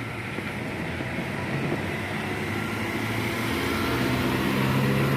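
Tour bus engine running, a low steady drone that grows louder over the last couple of seconds as the bus draws nearer.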